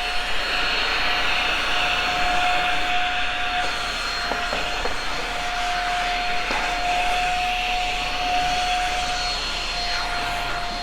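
Shark Rocket stick vacuum running steadily, a high motor whine over the rush of air, with its pitch dipping briefly a couple of times.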